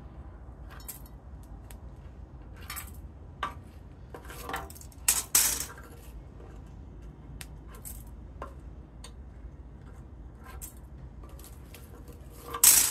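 Metal tools scraping and prying IC chips off a RAM stick on a hot plate, the solder softened by the heat: irregular clicks and scrapes as the chips knock loose. The loudest scrapes come about five seconds in and near the end.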